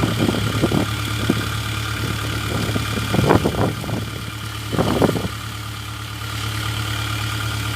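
Kubota DC-70 combine harvester's diesel engine running steadily, with two bursts of loud knocks, about three and five seconds in.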